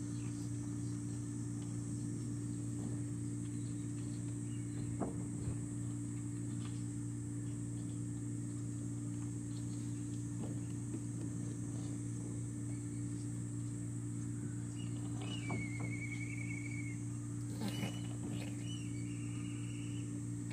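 A steady low hum with a faint high hiss, and a short high trill about fifteen seconds in.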